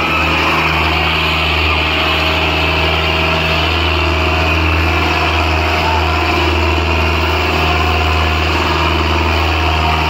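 Tractor engine running loud and steady.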